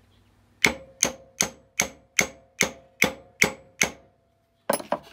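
Hammer tapping lightly on the underside of a drill press chuck: nine evenly spaced metal taps, about two and a half a second, each with a short ring, then two quick taps near the end. This is the chuck being driven onto its spindle taper after being warmed to expand it.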